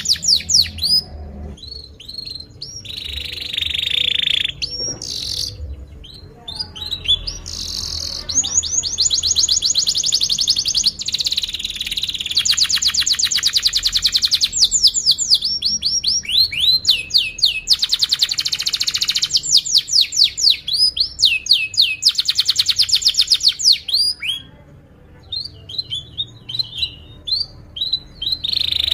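Domestic canary singing a long song: scattered chirps and quick whistled notes at first, then long rolling trills of fast repeated high notes, and chirps again near the end.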